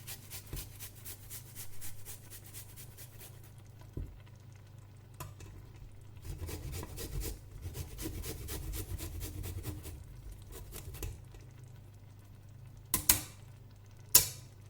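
Meat, onion and garlic cooking in oil in a pot, stirred with a spoon that scrapes and clicks against the pot. Two sharp knocks, about a second apart, near the end.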